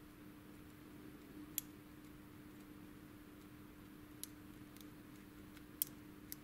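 Faint, sparse metallic clicks of a lock pick probing the pins of a Thirard euro cylinder held under tension during single-pin picking: about five separate clicks, the sharpest one near the end, over a faint steady hum.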